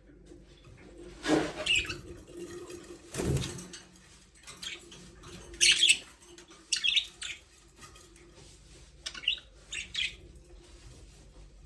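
Budgerigars chirping in short, scattered bursts, with two dull thumps about one and three seconds in.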